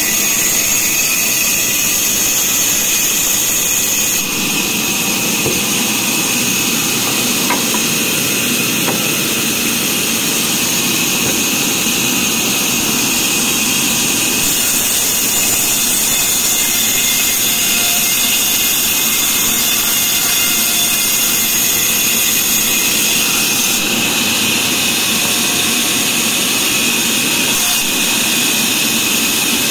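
Large vertical band saw running and cutting through a log: a steady, loud high-pitched whine and hiss that shifts abruptly in tone a few times.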